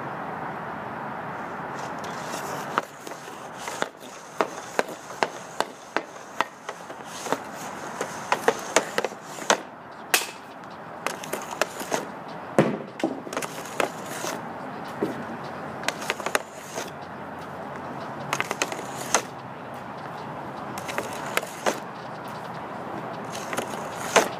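Composite hockey stick (Bauer X:60) blade clacking against pucks and the hard shooting surface: quick taps while handling the puck and sharp slaps as shots are fired, many of them at irregular intervals. A steady background rush fills the first few seconds before the clacks begin.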